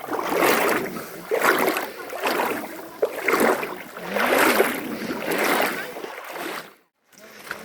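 River water sloshing and swishing in repeated surges about once a second, then a brief silence near the end.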